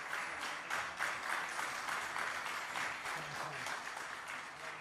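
Audience applauding, many hands clapping at once, fading near the end.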